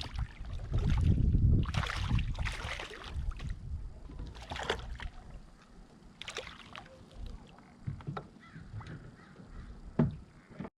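Kayak paddle strokes splashing in the water, several over the first seven seconds, with a sharp knock near the end.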